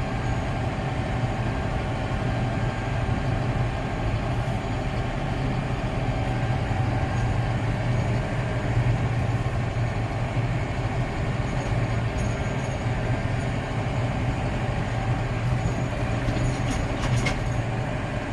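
Engine of a vehicle pulling a loaded grain trailer, running at a steady low drone while driving, over a steady haze of road noise.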